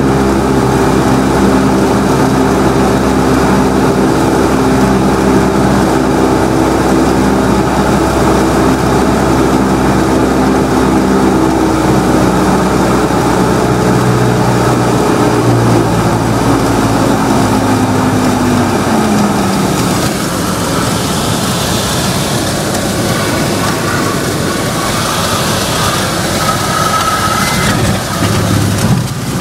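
Single-engine Cessna's piston engine and propeller droning steadily in the cockpit on final approach; about fifteen seconds in the engine note falls as the power is pulled back to idle for the landing. After that a steady rushing noise takes over as the plane comes down onto the runway, with the engine idling underneath.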